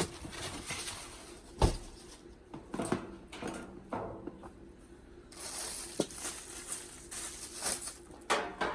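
Rustling and clattering of packaging and loose parts being rummaged through by hand, with one sharp knock about one and a half seconds in.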